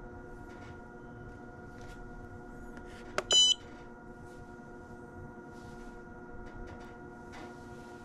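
A short, loud, high electronic beep from a control panel about three seconds in, over a steady hum while water is being pumped through the tankless water heater's circulation loop.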